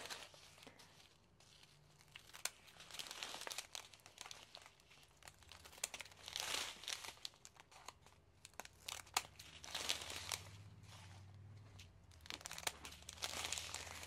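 Small plastic bags of diamond-painting drills crinkling in irregular bursts as a strip of them is handled and cut apart with scissors, with faint scissor snips among the rustling.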